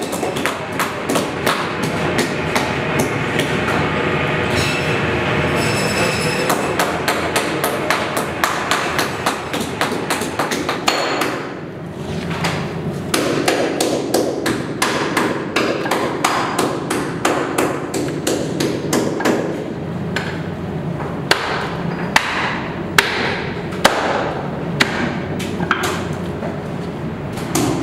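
Rapid, repeated knocking and tapping of a butcher's knife on a steel work table and a wooden chopping block as raw beef is trimmed and cut, several knocks a second with a brief lull partway through.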